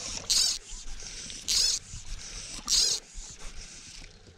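Fly reel's click-pawl drag buzzing in three short bursts, about a second apart, as fly line is stripped off the reel by hand to lengthen the cast.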